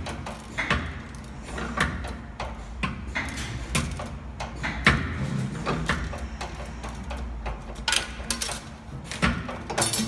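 Nicemach 3D-R70 CNC wire bending machine bending 6 mm steel wire: a steady low machine hum with sharp metallic clacks, irregular at about one to two a second, as the bending head and wire feed work.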